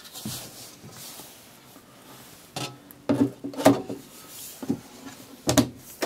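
The aluminium side door of a Mac Pro tower being set back in place and closed: handling rustle, then a series of sharp metallic knocks and clunks, the loudest about halfway through.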